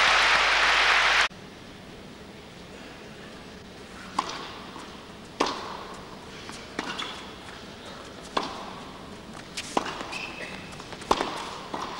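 Crowd applause cut off abruptly about a second in, then a tennis rally: six sharp racket strikes on the ball, about one every one and a half seconds, each with a short echo.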